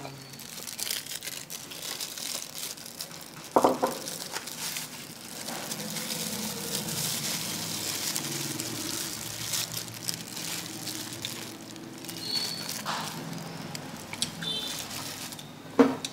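Steady background noise of a street food stall, with two short sharp knocks, one about three and a half seconds in and one near the end.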